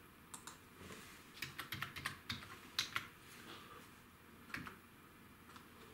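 Faint typing on a computer keyboard: a quick run of keystrokes from about one and a half to three seconds in, then one more click near the end.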